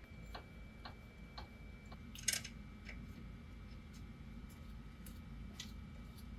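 Scattered light clicks and taps from tools and parts being handled, a few spaced about half a second apart, with one louder, sharper click a little over two seconds in.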